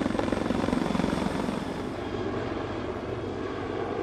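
Sikorsky CH-53K King Stallion heavy-lift helicopter flying overhead, its rotors giving a fast, steady chop. The sound is loudest for the first two seconds as the helicopter passes close, then changes abruptly to a softer, more distant rotor sound.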